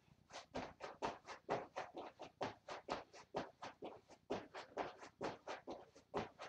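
Rhythmic soft landings and shoe scuffs of feet on a foam gym mat during scissors jumping jacks, about four short strokes a second and very even.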